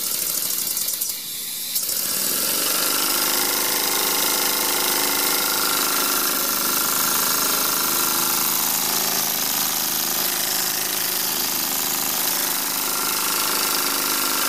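Homemade single-cylinder steam engine running fast under steam, with a rapid mechanical rattle and hissing steam. About two seconds in it grows louder, and a steady rush of escaping steam takes over with a hum of steady tones beneath.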